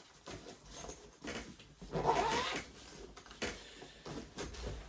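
A cat meowing once, briefly, about two seconds in, over faint clicks and rustling.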